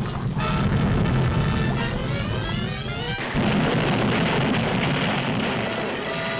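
Dramatic orchestral score with sweeping rising and falling runs over a heavy low rumble of a volcanic eruption sound effect; about three seconds in, a louder surge of rumbling noise comes in.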